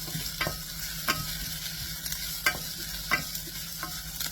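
Sliced onions with curry leaves, fennel seeds and fenugreek sizzling in hot oil in a pan while being stirred, the utensil clicking against the pan about every half to two-thirds of a second.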